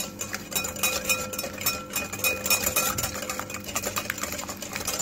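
Metal wire whisk beating egg and sugar in a glass bowl: a rapid, continuous clicking and tapping of the wires against the glass.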